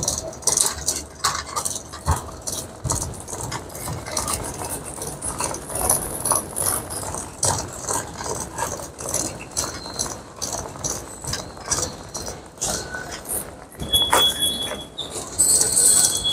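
Loaded airport luggage trolley rattling as it is pushed over a tiled floor, a continuous run of irregular clicks and clatter, with a short high-pitched tone about fourteen seconds in.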